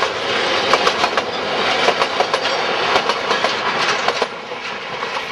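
Freight train wagons, mostly tank wagons, rolling past close by: steel wheels rumble and clatter on the track in a rapid run of sharp clicks. The clicks thin out about four seconds in and the noise eases slightly.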